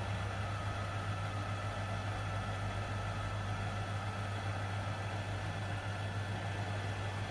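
Steady low electrical hum with a constant fan-like whir, from the repair bench's running equipment during micro-soldering.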